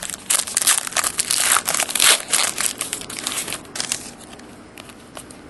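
Wrapper of a Panini Elite trading-card pack being torn open and crinkled by hand: a dense crackling that is loud for about the first four seconds, then thins to a few faint crinkles.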